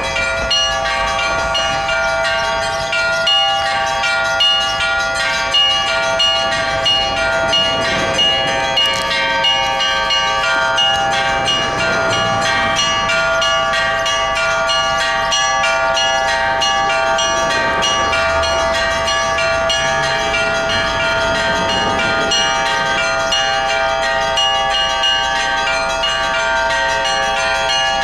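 Orthodox church bells being rung: several bells of different pitches struck in quick succession, their tones overlapping and sounding on without a break.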